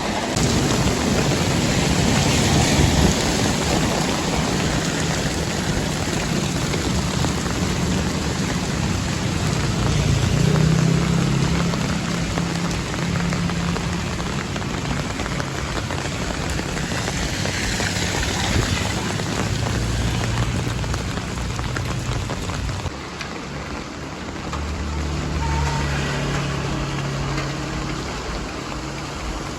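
Steady rushing of water with vehicle engines running underneath, their low hum rising and fading as they pass.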